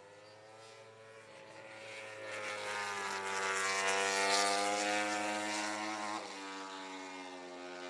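Repsol Honda MotoGP motorcycle's V4 engine running at high revs as the bike goes past: a steady engine note that swells to its loudest about four seconds in, then steps down slightly in pitch about six seconds in and fades.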